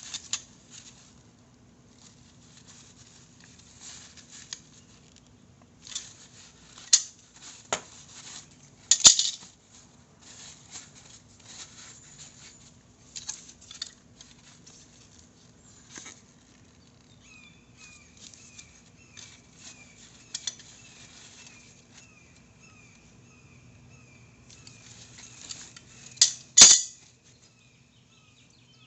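Small metal parts and hand tools being handled while working on a motorcycle's front brake: scattered clicks, light scrapes and rattles, with two sharper knocks about nine seconds in and near the end. A low steady hum runs underneath, and a faint even ticking joins in the second half.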